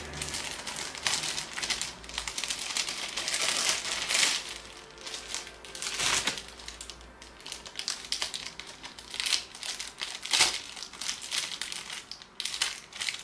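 Gift packaging crinkling and rustling in irregular bursts as it is handled and opened by hand, with a sharper crinkle about ten seconds in.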